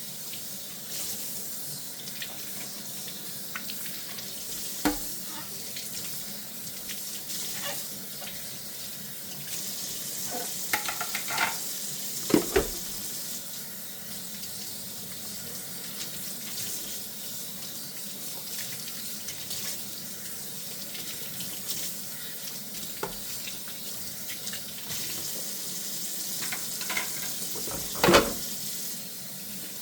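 Tap water running steadily into a sink during hand dishwashing, with a few scattered clinks and knocks of dishes, the loudest about halfway through and near the end.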